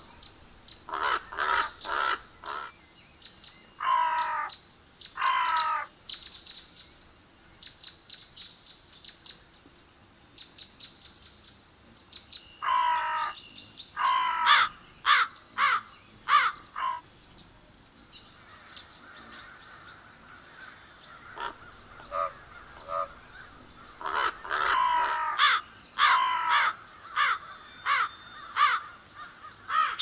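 Crows cawing in bursts of harsh calls, several in quick succession, with quieter runs of short clicking sounds between the bursts.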